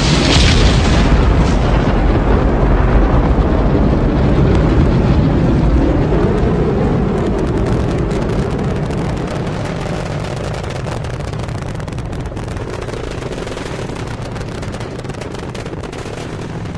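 Rocket engines and solid boosters at liftoff: a continuous deep rumble with dense crackling through it from about seven seconds in, slowly fading as the rocket climbs away.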